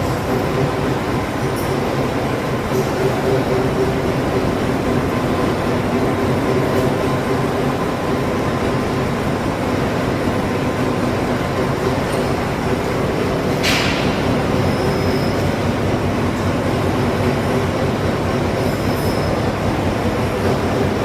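CNC rack rolling machine running with a steady, loud mechanical drone and faint steady hums. A single sharp click comes about two-thirds of the way through.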